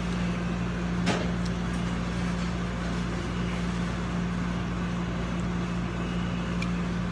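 Steady machine hum of a commercial kitchen exhaust hood fan, with a faint tick about a second in.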